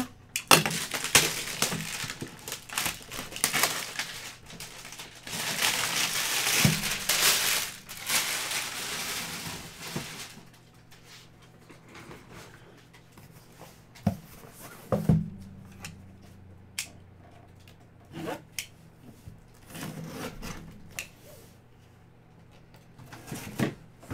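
A boxed autographed football helmet being unpacked: packaging rustling and tearing for about ten seconds, then the box and helmet handled with scattered knocks and thumps, the loudest about fifteen seconds in.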